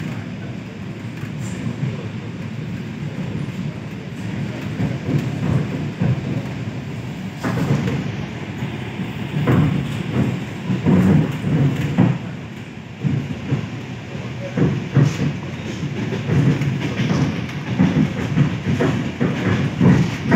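ED4M electric train running, heard from inside the passenger car: a steady low rumble with irregular clacks and knocks of the wheels on the track, growing louder and more frequent from about a third of the way in.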